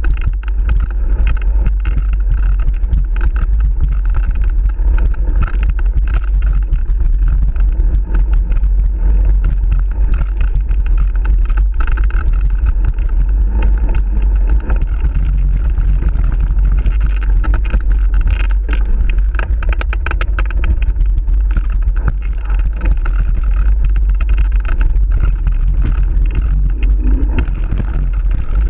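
Mountain bike riding a rough dirt trail, heard through an action camera's microphone: a constant heavy wind rumble, with the rattle and clatter of the bike and camera mount over the bumps.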